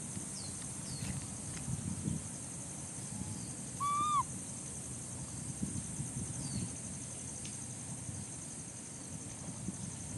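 Outdoor animal ambience: a steady high insect buzz with scattered rustles and soft thuds. About four seconds in, an animal gives a single short pitched call that rises and falls, the loudest sound. A few faint short chirps come and go.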